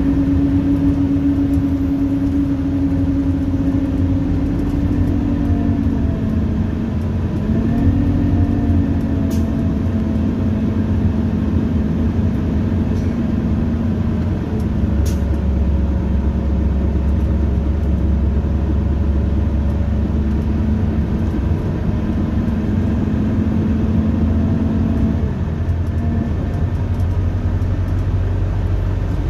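Cabin sound of a 2001 Orion V transit bus under way: its Detroit Diesel Series 50 inline-four diesel runs with a steady drone over low road rumble. The pitch dips and climbs again about seven seconds in and drops once more near the end, with a few short clicks of rattle.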